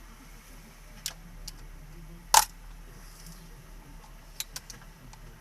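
A few sharp clicks and taps of a screwdriver against the plastic housing and clips of a car accelerator pedal assembly being taken apart, the loudest about two and a half seconds in.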